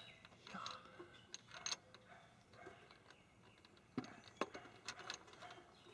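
Faint, scattered clicks and light taps of small parts being handled and fitted by hand, a few at a time with pauses between.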